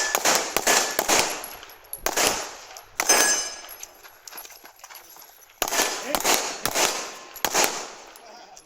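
Pistols firing in quick strings of shots, each shot a sharp crack with an echoing tail: one burst at the start, shorter groups about two and three seconds in, and a longer string of several shots in the second half.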